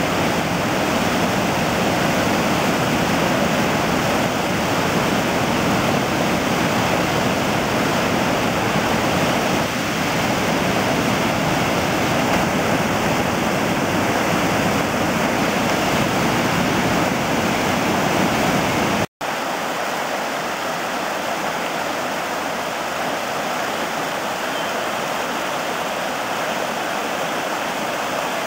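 High water gushing out of a dam outlet tunnel into a concrete channel, a loud steady rush of churning whitewater. About two-thirds of the way through it cuts to the creek flowing over rocky rapids, a slightly quieter rush with less low rumble.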